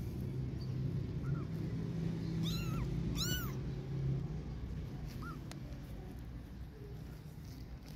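A young kitten meowing: four short, high-pitched meows that rise and fall in pitch, spread over several seconds, the third the loudest. A low steady hum runs underneath and fades about four seconds in.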